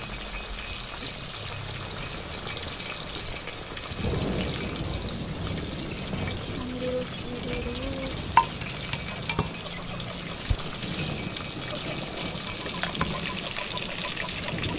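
Diced food frying in oil in a wok over a wood fire, a steady sizzle, with water trickling in the background, likely heavy rain. A few sharp pops come about eight to eleven seconds in.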